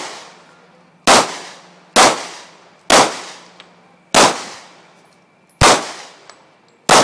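Pistol fired six times at a steady pace, about one shot a second, each sharp crack followed by a long echoing decay.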